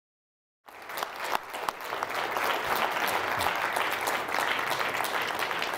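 Audience applauding, a steady patter of many hands clapping that cuts in abruptly a little under a second in.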